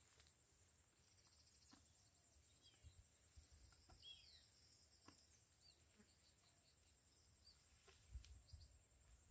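Near silence: faint open-air ambience with a few short bird chirps near the middle and a steady thin high drone, probably insects, plus a few faint clicks.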